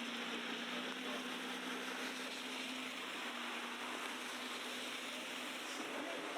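Steady busy city street ambience on a snowy night: an even wash of traffic and crowd noise, with a low steady hum underneath that fades out near the end.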